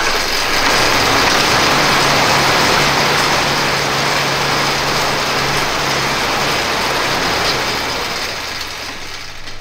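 Assault air bike's fan spinning as the rider pedals and pumps the handles: a loud, steady whoosh of air that builds over the first second and eases off near the end.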